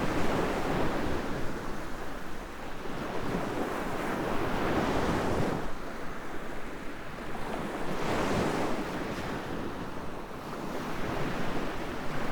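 Ocean surf breaking on a sandy beach, swelling and easing about every four seconds, with wind buffeting the microphone.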